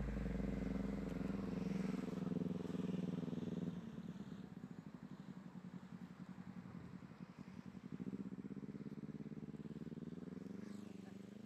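The last held note of a jaipongan song dies away and stops about a third of the way in. After it, a motor vehicle engine runs with a low, evenly pulsing rumble that grows a little louder and rises in pitch near the end.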